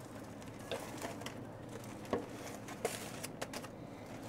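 A metal tray and foil-wrapped racks of ribs being handled at a pellet grill's grates: a scatter of light metal clinks and knocks with foil crinkling, the sharpest about two seconds in.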